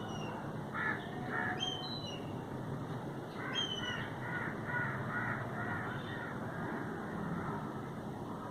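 A crow cawing in a series of harsh calls: two about a second in, then a quick run of about six near the middle. A few short, high whistled chirps from other birds come in between.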